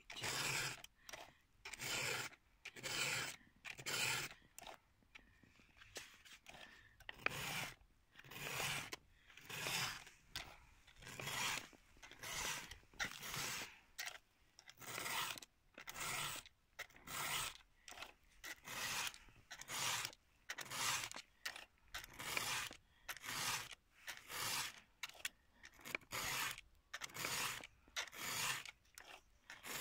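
Round chainsaw file rasping through the cutters of a saw chain by hand, in steady push strokes a little more than one a second.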